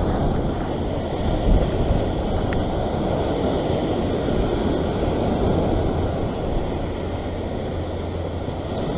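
Ocean surf breaking and washing over a rock ledge, a steady rushing wash, with wind buffeting the microphone.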